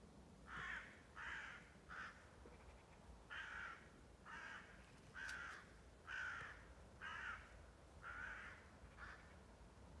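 Crow cawing, faint: about ten harsh caws, three in quick succession and then, after a short pause, seven more at roughly one a second.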